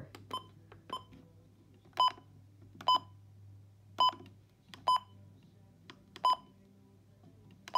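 Key-press beeps from a Midland weather radio as its buttons are pressed to set the alarm time: about seven short, identical beeps, roughly one a second.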